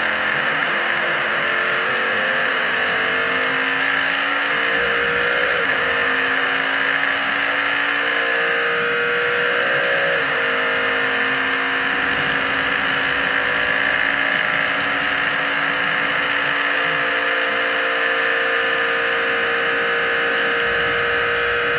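Spice Group C sports-prototype's racing engine heard onboard under full throttle. Its pitch climbs slowly, dips once at a gear change about ten seconds in, then holds a steady high note at speed, over heavy wind and mechanical noise.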